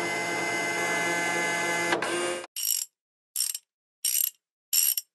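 Mechanical sound effect for tractor parts being fitted on in an animation: a steady mechanical sound for about two and a half seconds, then four short, high-pitched mechanical bursts under a second apart.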